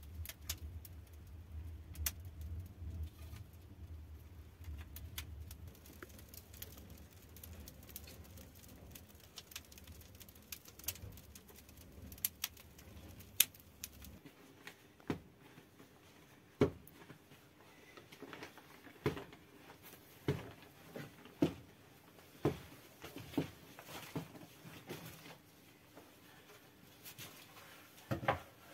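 Firewood burning in a clay tandoor oven, crackling with scattered sharp pops and knocks as it is stoked with a stick. A low rumble runs through the first half, and in the second half the pops come about once a second.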